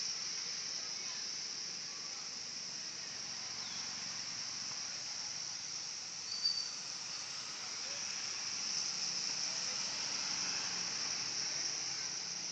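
Swiftlet lure call recording: a dense, steady high-pitched chirring twitter of many swiftlets, the kind of call played to draw swiftlets into a nesting house. One brief sharp chirp stands out about six and a half seconds in.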